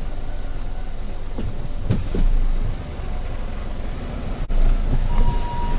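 Low, steady rumble of vehicles waiting at a railway level crossing. Near the end, an ambulance siren's two-tone "pee-po" comes in clearly, alternating a higher and a lower note.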